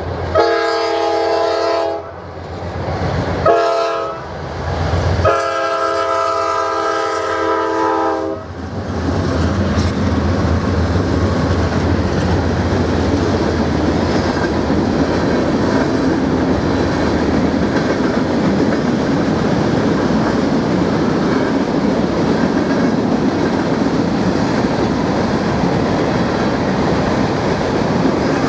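Diesel freight locomotive's multi-chime air horn sounding three blasts: long, short, long. Then the steady rumble and clatter of the freight train's wheels rolling past.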